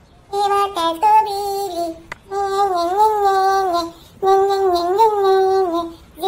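A high voice sings a wordless "na na na" tune in three phrases, each about a second and a half long, with brief breaks between them.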